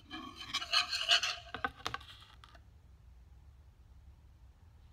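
Wire whisk beating a thin liquid dressing in a wooden bowl: fast, continuous scraping strokes, with two sharp knocks shortly before the whisking stops about halfway through.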